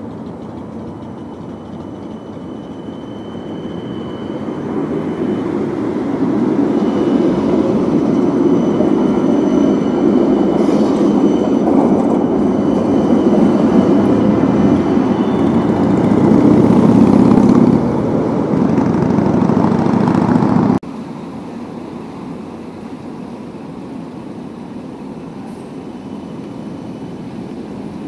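Articulated low-floor tram passing close by, the rumble of its wheels on the rails growing louder over several seconds, with a thin high steady tone above it. The sound cuts off abruptly about two-thirds of the way through, leaving a quieter steady street noise.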